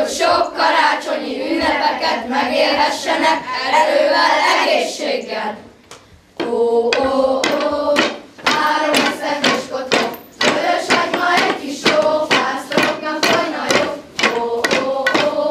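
A group of children singing a Christmas shepherds' song in unison, with a short pause a little before the middle. Sharp knocks keep time with the song, about two a second.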